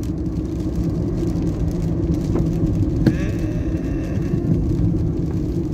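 Steady engine and tyre rumble inside a moving car's cabin, with one short knock about three seconds in.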